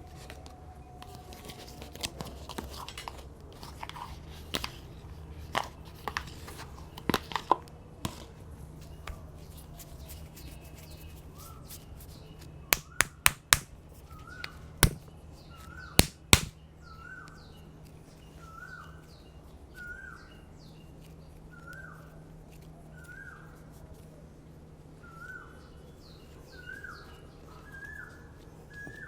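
Sharp cracking snaps of hair being pulled and cracked in a head massage, in small scattered clusters and then a run of louder cracks about halfway through. Over the second half a bird repeats a short chirp about once a second, growing louder.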